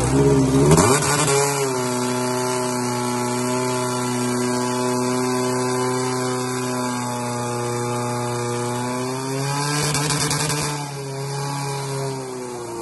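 Portable fire pump's petrol engine running at high revs. It climbs in the first second or so, holds a steady pitch, and starts to wind down near the end.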